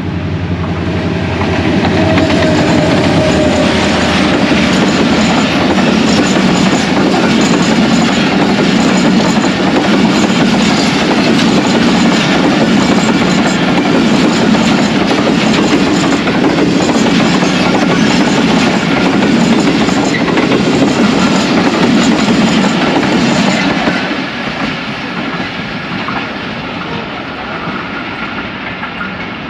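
Passenger express train hauled by an HGMU-30 diesel locomotive passing close by. The locomotive's engine hum comes first, then the coaches' wheels clatter steadily over the rails. The sound drops suddenly about 24 seconds in as the last coaches go by, and the train fades into the distance.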